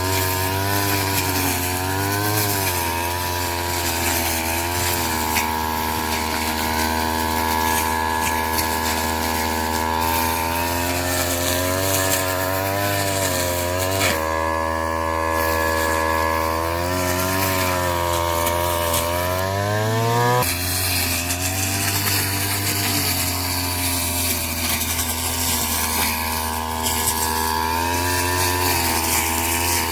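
Small engine of a straw-cutting machine running continuously. Its pitch wavers as it takes and sheds load, holds steady for a few seconds at a time, climbs in the middle and then drops suddenly about twenty seconds in.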